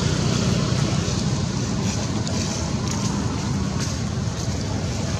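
A motor running steadily, a low drone with an even hiss above it, and a few faint rustles about two to three seconds in.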